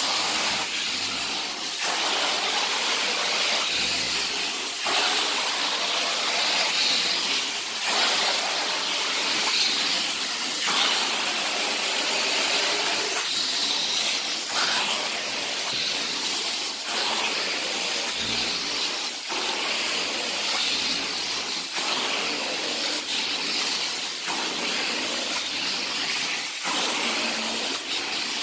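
Carpet-cleaning extraction wand running over pre-sprayed carpet: a steady rushing hiss of suction and spray that dips briefly every second or two.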